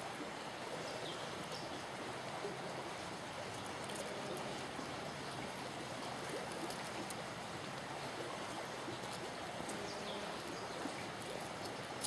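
Steady, even background hiss of outdoor ambience, with a couple of faint short high chirps about a second in and near the end.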